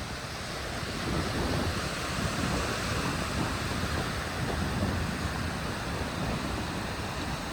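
Ocean surf washing in steadily, with a low fluttering rumble of wind on the microphone.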